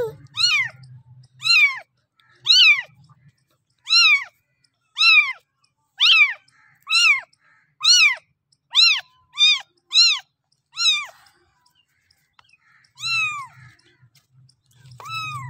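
A very young kitten meowing over and over in high, thin cries, each rising and then falling in pitch, about one a second, then a short pause before one last meow.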